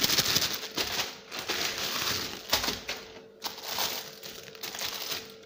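Plastic packaging crinkling and rustling in irregular handfuls as a sandal is pulled out of a plastic courier bag and handled in its clear plastic wrap, louder at first, with brief pauses.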